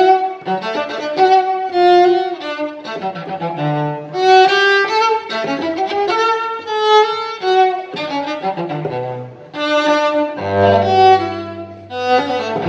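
Solo cello played with the bow: a slow, continuous melody of sustained notes, with a deep low note held under the tune for a couple of seconds near the end.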